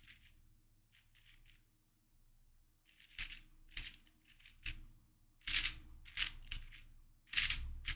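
Plastic clicking and clacking of a YJ MGC 4x4 speed cube's layers being turned in quick runs of moves, sparse at first and denser in the second half.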